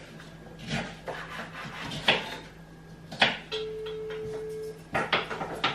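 Knife knocking on a chopping board at an irregular pace while onions are cut. A steady tone sounds for about a second in the middle.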